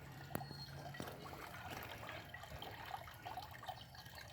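Faint small birds chirping intermittently, with a single sharp click about half a second in.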